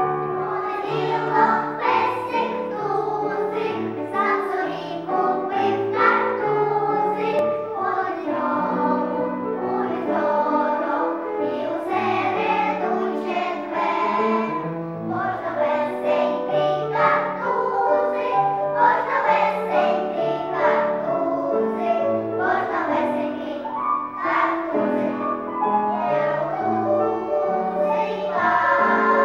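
A choir of young children singing a song together with piano accompaniment.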